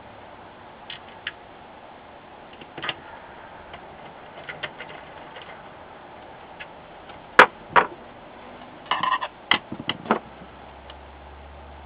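Hand screwdriver and small screws clicking and tapping against the sheet-metal rear chassis of an LCD monitor as the connector screws are driven back in. Light, scattered ticks, with a sharper knock about seven and a half seconds in and a quick run of clicks around nine to ten seconds.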